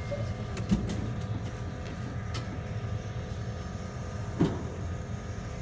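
Inside a stopped Em-series (81-501/502/503) metro car: a steady low hum with faint steady whining tones from the car's equipment, and two short knocks, one about a second in and one near the end.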